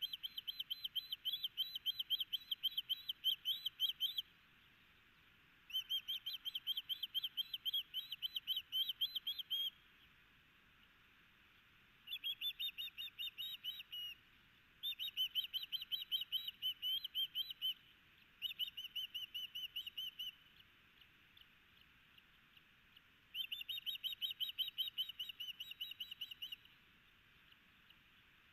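Osprey calling: six bouts of rapid, high whistled chirps, several a second, each bout lasting two to four seconds with short pauses between.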